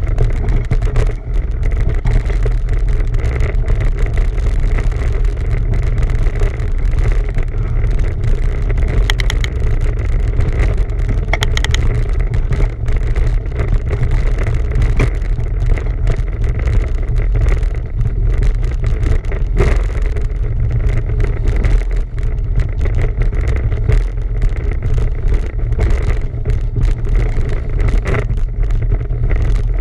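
Steady low rumble of wind buffeting a camera microphone on a moving bicycle, mixed with the rolling noise of the bike.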